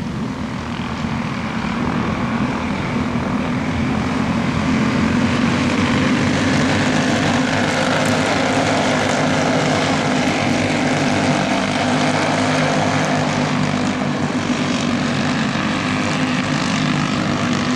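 Several go-kart engines buzzing together as the karts race past on the track, getting louder about two seconds in and then holding steady.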